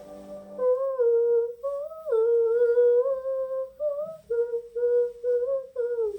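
A woman's voice humming a slow wordless melody, unaccompanied, in short gliding phrases that begin about half a second in.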